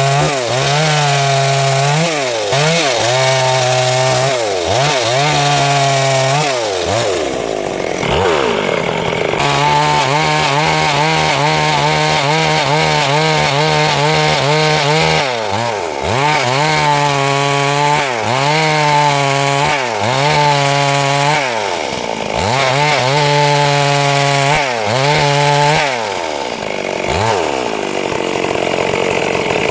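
Stihl MS 382 two-stroke chainsaw cutting wood at high revs, its pitch dipping and recovering again and again as the chain bites and the load changes, with a steadier stretch of cutting in the middle and the revs falling away near the end.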